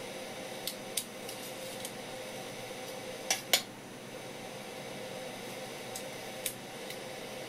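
Light clicks and knocks of a kitchen knife and fingers on a wooden cutting board as a gurnard fillet is handled. The loudest is a sharp double knock about three and a half seconds in, over a steady background hum.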